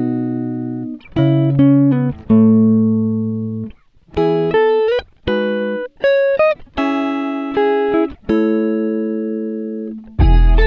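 Background music: a melody of single plucked guitar notes, each ringing and fading, some sliding in pitch. Fuller accompaniment with a deep bass comes in near the end.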